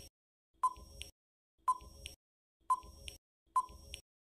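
Quiz countdown timer sound effect: short beeping ticks, about one a second, each with a fainter click just after.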